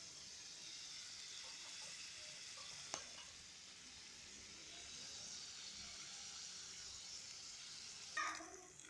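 Meat cutlets and onions sizzling steadily in a tagine, with a single sharp click about three seconds in.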